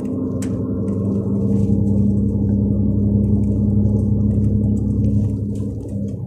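MAN Lion's Regio coach's 360 hp MAN diesel engine droning steadily under load, heard from inside the coach; it grows louder over the first two seconds, then eases off from about five seconds in.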